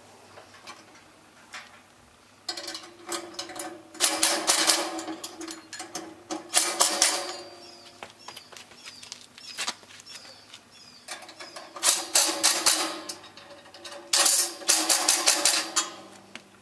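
Cordless drill driving and tightening the bolts on a steel charcoal smoker. It runs in about four bursts of one to three seconds, a steady motor whine with rapid rattling clicks.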